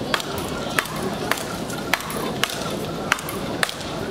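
Speedball rally: flat paddle rackets striking the ball that is tethered to a central pole, about seven sharp hits at a quick, fairly even pace, traded between two players.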